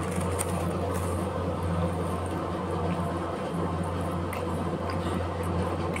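Soft eating sounds at a table: chewing close to the microphone and a few faint clicks of a spoon on a plate, over a steady low hum.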